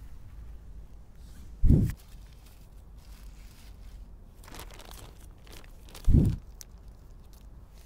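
Two heavy low thumps about four and a half seconds apart from the camera being handled and moved at ground level, with fainter crinkling of plastic between them.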